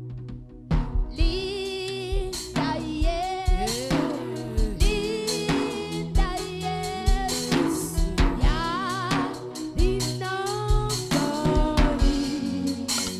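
A gospel worship song performed live: a singer's voice over a drum kit and band. The music fills out about a second in.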